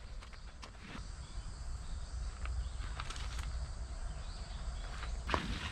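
Outdoor campsite ambience: a steady low rumble, a faint steady insect drone, and a few scattered footsteps on gravel, the loudest about five seconds in.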